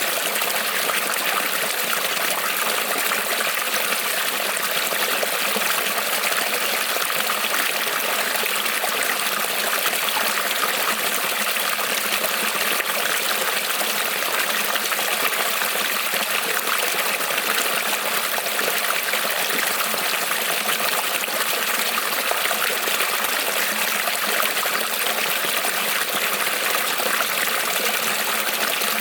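Creek water rippling and trickling over stones, a steady even splashing with no pauses.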